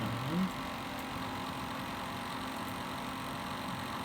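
Desktop PC's liquid CPU cooler and case fans running with a steady whirring hum; the owner says the cooler has been making this noise for days and blames it on the cooler not working.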